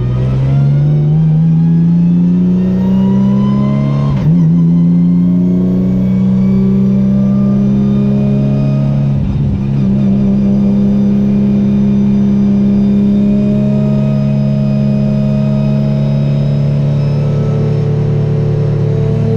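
Renault Mégane Trophy race car's 3.5-litre V6 accelerating hard, its note rising, with a quick upshift about four seconds in where the pitch drops. A short break in the note about nine seconds in, then the engine pulls on steadily, its pitch climbing slowly.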